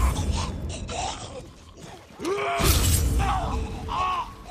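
Sword-fight combat sound effects: shouted, groaning cries with a heavy whooshing impact about two seconds in, and a shorter cry near the end.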